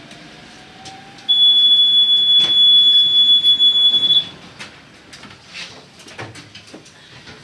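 Tatra T6A5 tram's door-closing warning signal: one steady, loud, high-pitched tone about three seconds long, starting about a second in, followed by several clicks and knocks.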